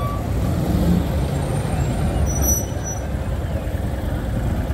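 Steady low rumble of street traffic and vehicle engines.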